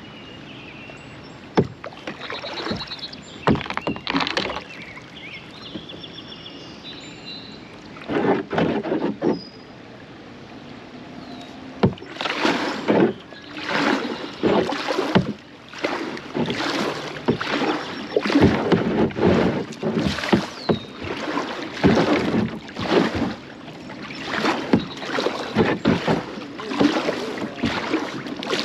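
Kayak paddle strokes dipping and splashing in the river water, a few scattered strokes at first, then a steady rhythm of about one stroke a second through the second half.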